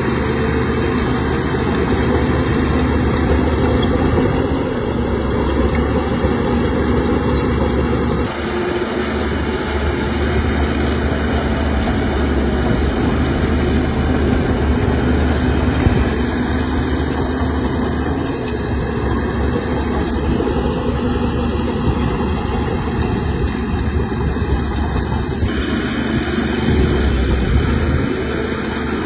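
Heavy diesel machinery running steadily: a dump truck tipping sand, then a Shantui crawler bulldozer pushing sand. The sound changes abruptly a few times at cuts in the footage.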